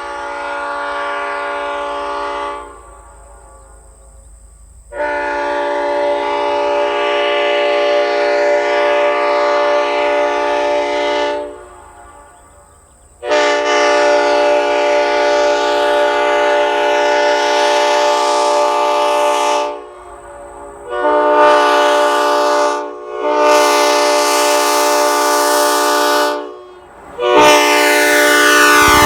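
Replica Leslie S5D five-chime air train horn blowing a steady chord in a series of blasts. The first blast ends a couple of seconds in, two long blasts of about six seconds follow, then three shorter blasts come in quick succession near the end.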